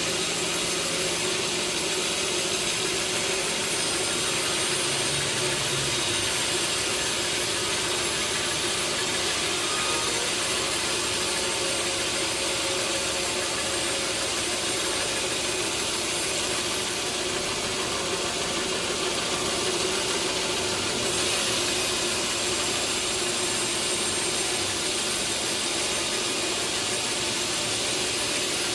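Sawmill saw and its machinery running steadily while milling a large teak log: an even, unbroken mechanical noise with a hiss on top.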